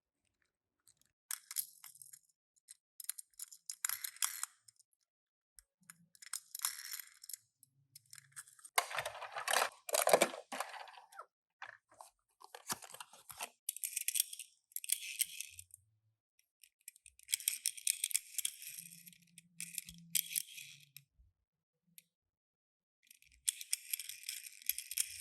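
Toy packaging being handled and opened by hand: repeated short bursts of rustling and crinkling, with a louder, fuller tearing sound about nine seconds in.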